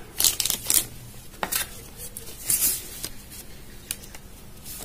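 Plastic wrapping crinkling and a cardboard box being handled, heard as several short bursts of rustling and scraping.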